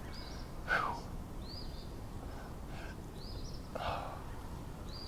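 A bird repeating a short, high call about every second and a half. Two breathy sighs from a man come between the calls, one near the start and one after the middle.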